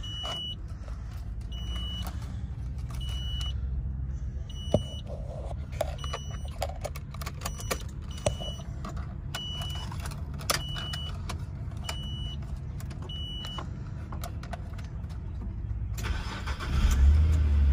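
Car warning chime beeping about every 1.3 s, with a few clicks of keys and the ignition. Near the end the 1999 Infiniti I30's 3.0-litre V6 cranks and catches on a cold start, then settles into a loud, steady idle.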